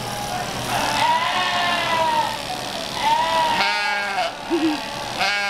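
A sheep in a shearing stand bleating repeatedly while it is shorn: a long wavering call lasting about two seconds, then shorter quavering bleats near the middle and at the end.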